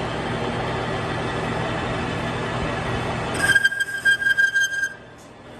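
Manual lathe running with a steady mechanical noise. About three and a half seconds in, a high-pitched squeal with uneven, jerky loudness sounds for about a second and a half as the cutting tool takes a deep cut. The noise then drops off sharply.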